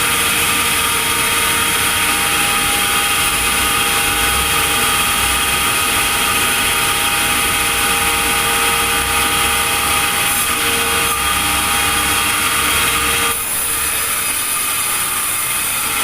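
Sawmill machinery running steadily: a loud, continuous mechanical noise with a steady whine, dipping slightly about thirteen seconds in.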